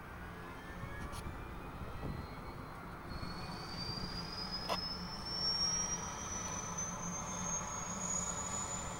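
Helicopter turbine engine spooling up during start-up: a thin whine climbing steadily in pitch from about a third of the way in, over a steady low rumble, while the main rotor is still turning slowly.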